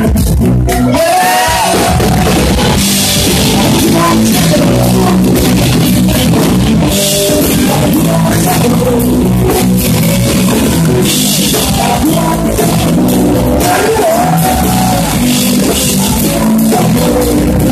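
Live blues band playing loud: electric guitars, bass guitar and drum kit, with a saxophone in the band.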